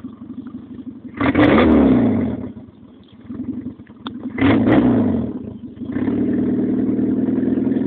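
Car engine idling, then revved twice, each rev jumping up and sinking back down over about a second, and then held at a steady raised speed near the end.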